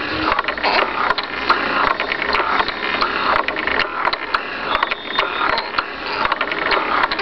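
Baby swing's drive mechanism running as it swings, a steady whirr with repeated clicking.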